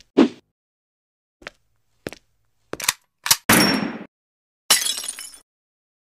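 A run of short, sharp clanks and knocks, about six in the first three and a half seconds, the first the loudest. Two longer, noisier impacts follow, each fading out.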